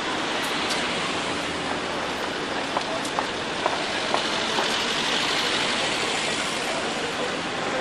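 Steady street traffic noise, mostly an even hiss of passing vehicles, with a few faint ticks.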